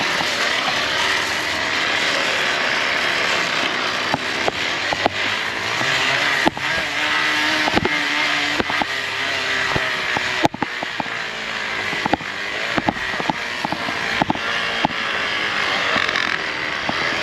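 Bicycle fitted with a motorcycle-sound noisemaker, running while riding, with a steady rushing hiss and scattered clicks and knocks. There is one sharp knock about ten seconds in.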